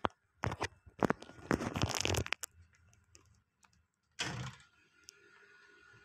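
Rustling and scraping handling noises in the first two seconds, then a short scrape about four seconds in as the wooden front door of a home-built egg incubator is pulled open. A faint steady high tone runs underneath.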